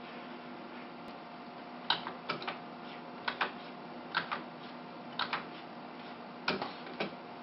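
Stylus nib tapping on a pen-display graphics tablet's screen with short drawing strokes: about a dozen light, sharp ticks, often in pairs, starting about two seconds in, over a steady faint electrical hum.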